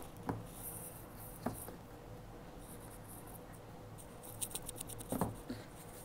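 A tight-fitting cardboard box lid being worked open by hand: faint rubbing and scraping of card on card, with a few light knocks and a quick run of small clicks about four and a half seconds in.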